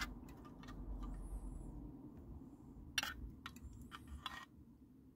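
Metal spoon clinking and scraping in an open tin can as fruit cocktail is scooped out into a bowl: several sharp clinks, a couple with a faint ringing after them, over a low steady hum.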